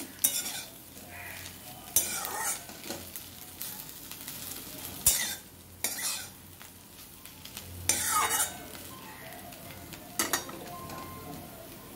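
Metal spatula scraping and turning bread cubes and vegetables around a metal kadai, about six loud scrapes at irregular intervals, over a steady sizzle of the stir-fry.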